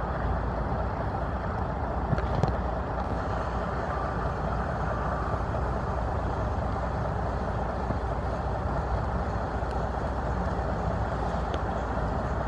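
Strong wind buffeting the camera microphone: a steady, dense rumble, heaviest in the low end, with a small knock about two seconds in.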